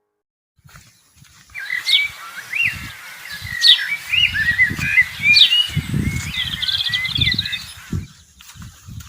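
Birds singing and chirping: a run of short whistled notes and chirps with quick rising and falling sweeps, starting a second or so in and stopping near the end, over an irregular low rumble.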